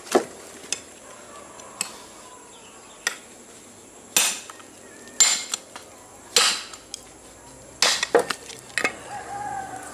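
Steel blade of a handmade bone-chopping golok (cleaver) hacked repeatedly against hard rock to break it: about ten sharp, ringing clanks at uneven intervals, the hardest blows around the middle.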